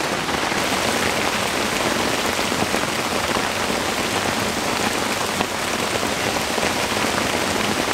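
Heavy rain falling steadily on a cardboard tent, heard from inside, with scattered louder drops.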